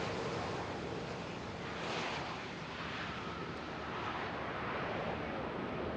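Steady rushing noise of a jet aircraft's engines, swelling slightly about two seconds in.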